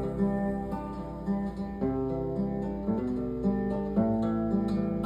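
Acoustic guitar (violão) playing a slow hymn accompaniment alone: plucked chords over sustained bass notes, in a steady pulse between sung phrases.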